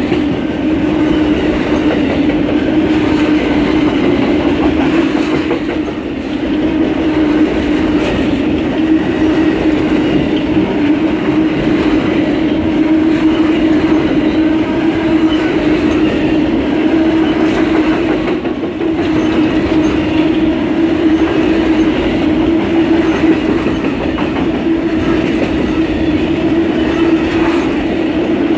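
Amtrak Auto Train's auto-carrier cars rolling past: a loud, steady rumble of steel wheels on rail with a constant hum running through it.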